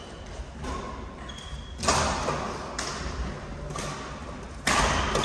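Badminton rally: rackets striking the shuttlecock about once a second, four hits in the second half, each echoing in a large hall. Shoes squeak briefly on the court floor between shots.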